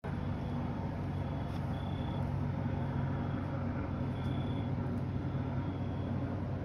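Steady low mechanical hum of a running motor or engine, holding several low tones without change, with faint short high-pitched tones now and then.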